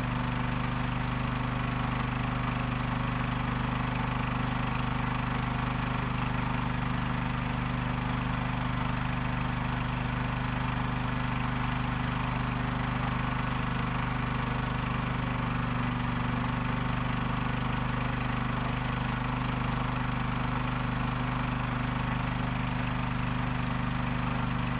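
Small Robin petrol engine running steadily at a constant speed, driving a machine that separates gold from sand.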